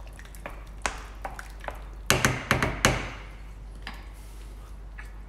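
Kitchen utensils knocking and clattering on a stainless steel worktop. A few light taps come in the first couple of seconds, then a quick run of louder knocks about two seconds in, and one more tap near the end.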